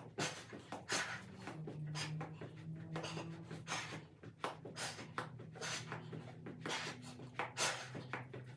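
A person working through leg-raise ab exercises: short, irregular rushes of breath and rustling a few times a second, over a faint low steady hum.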